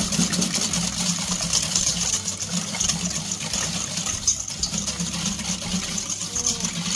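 Wire balloon whisk beating eggs, buttermilk and sugar in a stainless steel bowl: a fast, steady rattle of the wires against the metal bowl, with the liquid batter sloshing.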